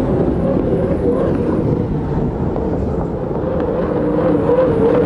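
Turbine-powered unlimited hydroplanes racing at high speed: a loud, steady engine noise with a wavering tone.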